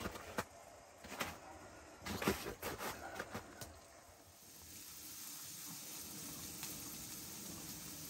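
A few sharp knocks and clinks of cookware being handled on a stove top. Then, from about halfway, a steady sizzle of diced potatoes frying in a skillet on a wood stove.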